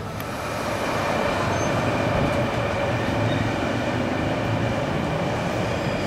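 Electric commuter trains of the E231 and E233 series at a station platform: a steady rail running noise with a faint, steady high tone over it.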